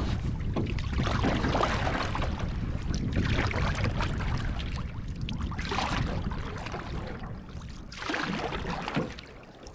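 Wooden canoe paddle strokes, each a splash and swirl of lake water, coming every couple of seconds over a steady low rumble of wind on the microphone.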